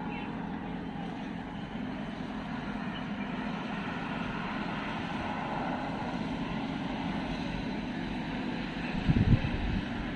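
A steady, low mechanical hum like a running engine or motor, with a few low bumps about nine seconds in.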